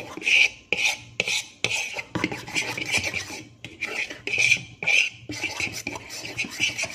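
A utensil scraping and stirring round a large mixing bowl, beating thick banana pancake batter, in quick, uneven strokes.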